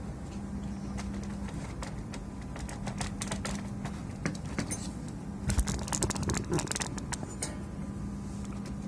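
Irregular sharp clicks and taps from handling the PS4 Slim's parts, coming thickest in a cluster around the middle, over a steady low hum.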